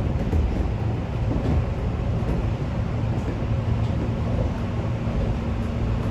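Interior running noise of a Tobu 8000-series electric train in motion: a steady low rumble of the car rolling along the track, with a faint steady hum coming in about halfway through.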